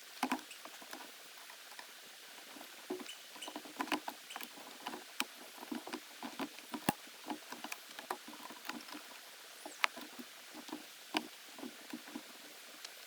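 Irregular light taps and clicks, several a second, over a faint steady hiss.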